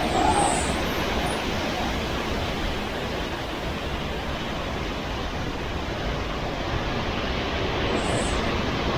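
Hurricane wind and rain: a steady, even rushing noise with no breaks.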